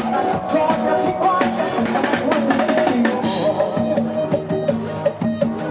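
Live band music without vocals: a drum kit keeps a steady beat under a sustained melody line.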